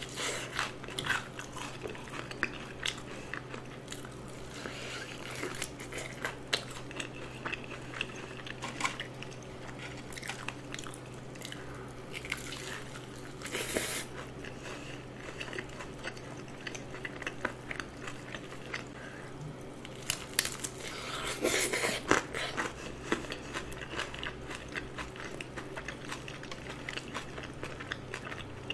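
Close-miked biting and chewing of a cheese-seasoned fried chicken drumstick: crisp crust crunching and wet chewing clicks, with louder crunches about 14 and 22 seconds in. A steady low hum runs beneath.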